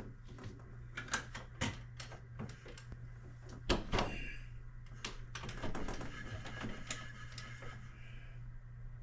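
Crank-out casement window being cranked open by hand, its crank operator clicking irregularly, with one louder clunk about four seconds in. A faint high whine runs from about five to eight seconds.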